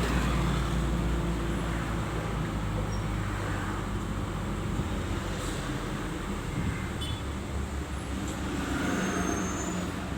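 Road traffic in a jam: vehicle engines running with a steady low hum and road noise.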